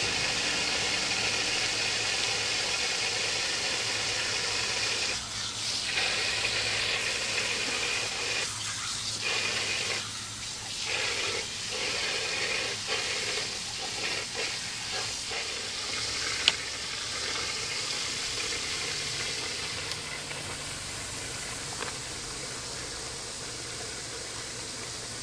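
Garden hose jetting water into a plastic kiddie pool: a steady hiss and splash that breaks up irregularly in the middle as a German Shepherd bites and laps at the water.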